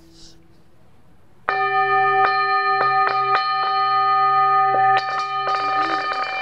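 A metal singing bowl struck with a mallet about a second and a half in, then ringing on with several steady tones, with a few small knocks while it rings and a fresh strike about five seconds in.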